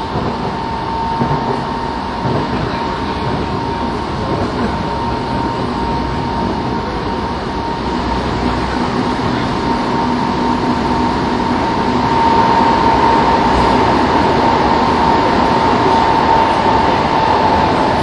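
Kobe Municipal Subway 3000 series train running between stations, heard from inside a car: a steady rumble of wheels on rail with a constant high whine. It grows a little louder over the second half.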